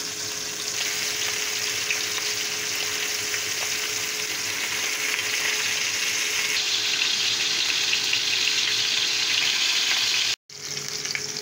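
A leg of lamb searing in hot vegetable oil in a cast-iron frying pan, a steady sizzle as it is browned to a golden crust on all sides. The sound cuts out for a moment near the end, then the sizzle resumes.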